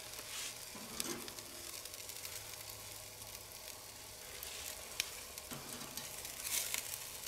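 Steaks and bacon sizzling on the grate over a charcoal grill, a steady crackling hiss with a few short clicks.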